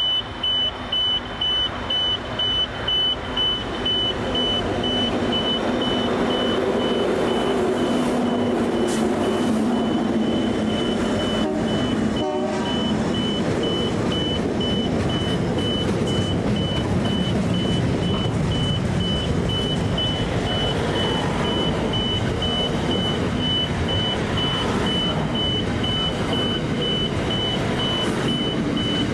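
A standard-gauge freight train passing close by: a diesel locomotive's engine goes past in the first seconds, then the wagons run steadily on the rails. A crossing warning signal beeps on and off about twice a second throughout.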